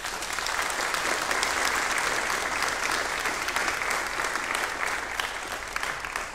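Congregation applauding, building quickly at the start and tapering off near the end.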